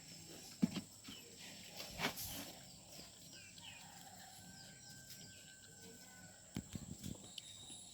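Quiet outdoor rural ambience: faint bird chirps over a steady high-pitched insect drone, with a few soft knocks about half a second and two seconds in and a short cluster near the end.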